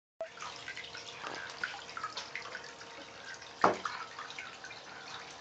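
Bathwater trickling and dripping as a toy spout pours a thin stream into a cup, with small splashes from a child's hands in the tub. One sudden louder hit stands out about two thirds of the way through.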